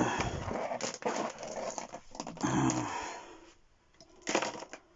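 A man breathing heavily with wheezy, sighing exhalations and low groans, from the strain of lying on the floor.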